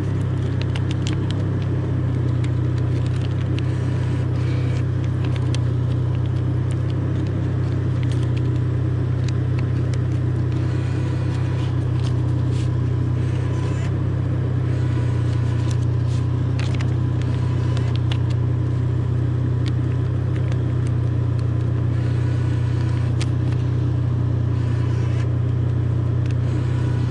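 A steady low mechanical hum that holds constant throughout, with scattered faint clicks over it.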